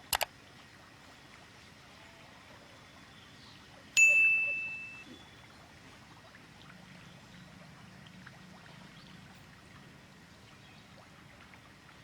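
A single bright metallic ding about four seconds in, a small bell or piece of metal struck once and ringing out for about a second, after two short clicks at the start.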